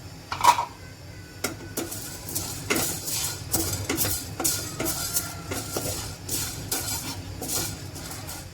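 A spatula stirring and scraping black peppercorns and toor dal as they dry-roast in an empty pan. There is a louder clatter about half a second in, then repeated scrapes, two or three a second.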